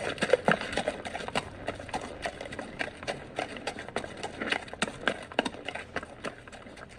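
Horse hooves clip-clopping in a quick, irregular run of hoofbeats, several a second, fading out near the end.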